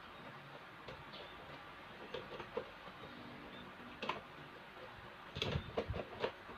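Light clicks and ticks of an orbit fan's metal motor parts being handled: a few scattered ones at first, then a quick run of them about five and a half seconds in.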